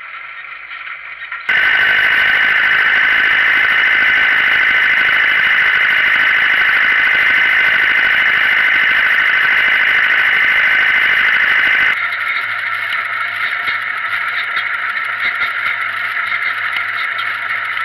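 Farm tractor running in the field, in cut-together shots. Inside an older tractor's cab the engine runs with a loud, steady high-pitched whine, then after a sudden cut about two-thirds in, the tractor runs more quietly with a steady low hum.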